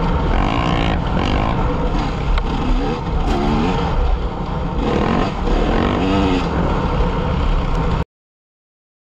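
KTM EXC enduro motorcycle engine running under way, its revs rising and falling repeatedly as the bike is ridden over a dirt track. The sound cuts off suddenly about eight seconds in.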